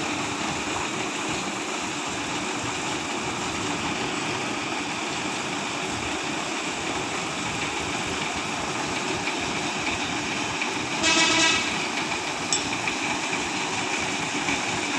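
Truck engine idling steadily, with a vehicle horn sounding once for about half a second, some eleven seconds in.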